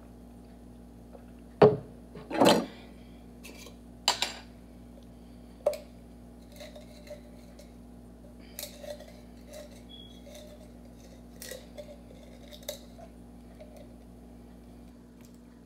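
Kitchenware being handled at a countertop: a few sharp knocks and clinks of dishes in the first several seconds, then quieter small clicks and rustles, over a steady low hum.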